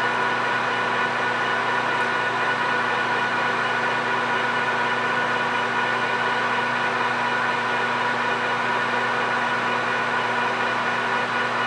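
PM1660 engine lathe running steadily at about 600 RPM while a half-inch cobalt drill is fed by the tailstock into a 6061 aluminium bar. A steady mechanical hum with several held tones, even in level throughout.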